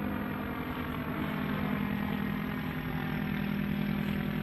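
Paramotor engine and propeller running at a steady speed: one constant, even-pitched hum.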